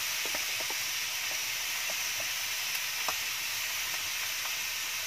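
Marinated chicken pieces sizzling on a non-stick grill pan over a wood fire: a steady hiss with scattered small pops and crackles, most of them in the first three seconds.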